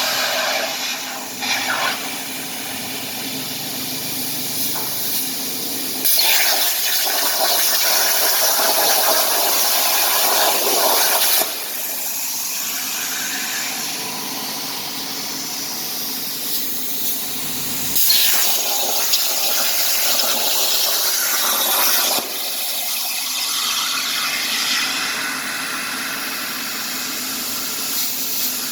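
CNC plasma cutting torch hissing as it cuts, with two louder stretches of several seconds each that start and stop abruptly.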